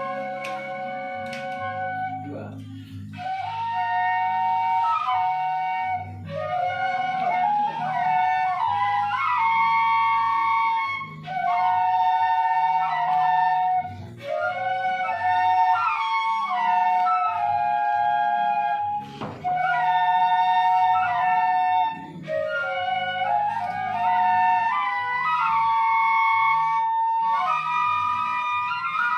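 Seruling emas, traditional bamboo flutes, played together in a tune with two or more melodic lines in harmony over low held bass notes. The music comes in phrases a few seconds long, with brief breaths between them.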